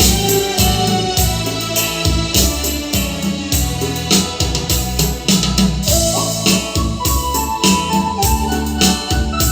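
Music led by an electronic keyboard, with sustained melody notes over a steady beat.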